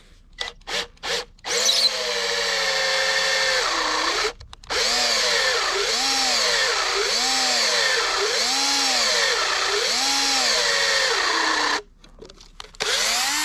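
Battery drill spinning a hollow leather-punch bit through rubber ATV track belting: a few short trigger blips, then a long run with a brief stop, its motor pitch rising and falling about every second and a half, and one last short burst near the end.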